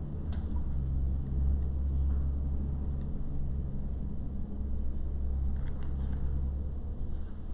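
Steady low rumble of background noise, with a couple of faint light clicks.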